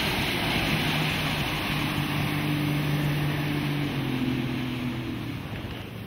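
Motorboat engine running under way, with wind and water rushing past the boat. A steady engine tone holds through the middle and fades near the end.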